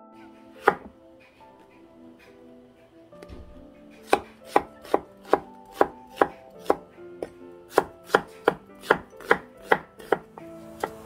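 Chinese cleaver chopping on a wooden butcher-block cutting board: a single chop through raw chicken about a second in, then from about four seconds a steady run of chops through onion, roughly two a second.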